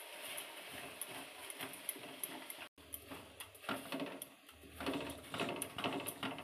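A spatula stirring and scraping wet sugar granules around a dark-coated kadai, a gritty run of quick scrapes and clicks, as sugar and a spoonful of water are heated to make caramel.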